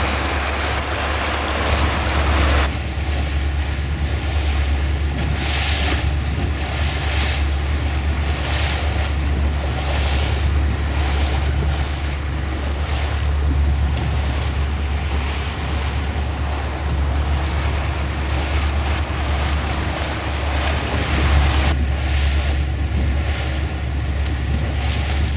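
Motorboat cruising slowly: a steady low engine hum under the splash and hiss of water along the hull, with wind gusting on the microphone.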